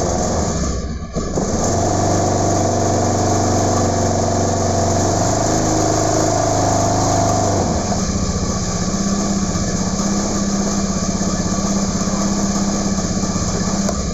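Automatic scooter's small engine running steadily just after being started, with a brief dip about a second in. About eight seconds in, its note changes and it settles into a pulsing idle.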